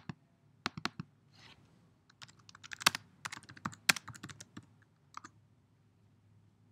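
Typing on a computer keyboard: a few separate clicks in the first second, then a quick run of keystrokes from about two to four and a half seconds in, with a couple more after.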